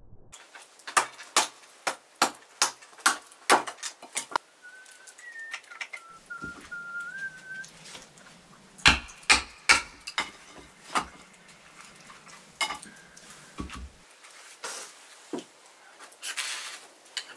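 A series of sharp knocks, several a second for the first few seconds and again in a cluster about nine seconds in, with a short wavering whistle for about three seconds between them.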